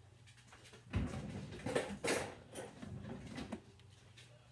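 Irregular light knocks and rustles of kitchen things being handled, over a faint steady low hum; the knocks start about a second in and stop about a second before the end.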